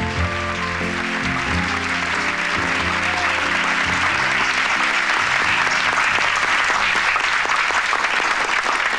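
Music fades out over the first few seconds as a crowd's applause swells and takes over, continuing steadily to the end.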